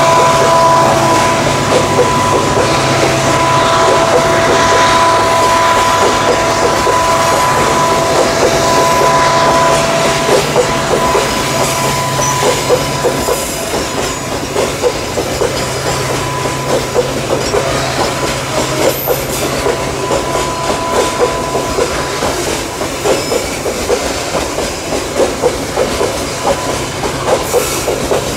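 Loaded coal hopper wagons of a long freight train rolling past, steel wheels clicking rhythmically over the rail joints, the clicks growing more distinct in the second half. A steady two-note whine heard at first fades out around the middle.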